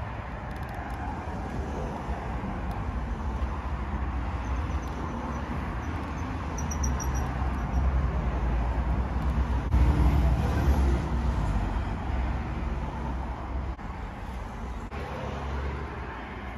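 Steady low outdoor rumble, like distant road traffic, swelling for a few seconds around the middle.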